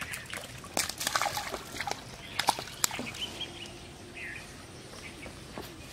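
A quick series of sharp splashes and rustles, loudest about two and a half seconds in, as a small hooked fish is pulled out of the pond onto the grassy bank; a few bird chirps follow.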